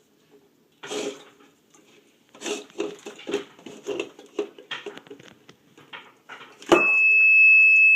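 Light knocks and clatters of objects being handled, then a sharp knock, and at once the homemade door alarm's buzzer starts sounding a loud, steady high-pitched tone.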